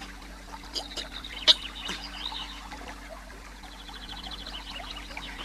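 Cartoon sound effects: soft scattered clicks and taps, one sharper click about a second and a half in, and a thin, high, rapid trill in the middle.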